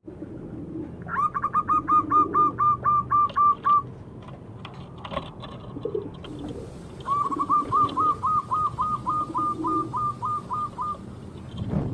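Zebra dove (perkutut) calling: a rapid run of about a dozen short, clipped coo notes at about four a second, then a second, longer run a few seconds later. Softer low coos sound between the runs.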